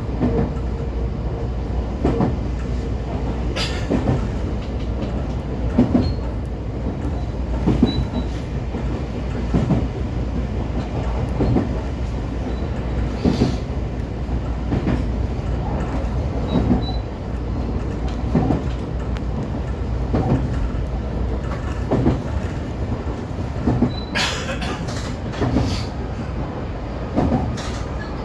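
JR 125 series railcar running along the line: a steady low rumble, with wheels clicking over rail joints about every two seconds. Near the end there is a brief brighter, sharper burst.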